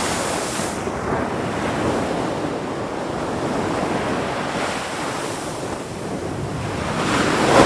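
Ocean waves surging and washing on a shore, a steady hiss of surf. One wave dies away in the first second and the next swells up near the end.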